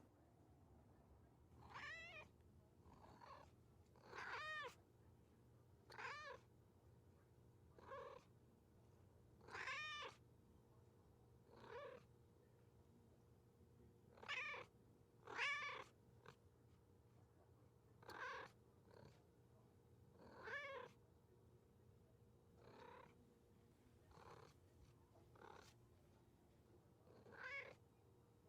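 A cat meowing over and over, about fifteen short meows, each rising and falling in pitch, with a second or two between them; the loudest come a little past the middle.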